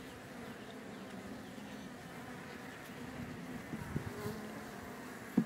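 Honeybee colony buzzing from an opened hive: a steady low hum. Two knocks break through, one about four seconds in and a sharper, louder one just before the end.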